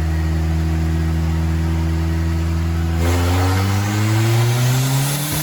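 Turbocharged GM 2.0 four-cylinder engine running on a dynamometer, holding a steady speed for about three seconds and then revving up, its pitch climbing smoothly to the end.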